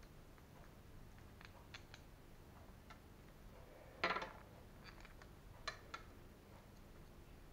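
Small plastic and metal suspension parts of a Traxxas Revo 3.3 RC truck handled by hand: faint scattered clicks and ticks, a louder short rattle about four seconds in, and two sharp clicks about six seconds in.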